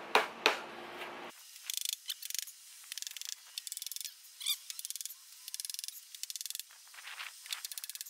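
Two hammer blows on a wooden block, driving a metal stovepipe down over a wooden post, in the first half-second, then they stop. After that come short bursts of rapid, high buzzing clicks, repeated about once a second, typical of insects, with one short bird chirp midway.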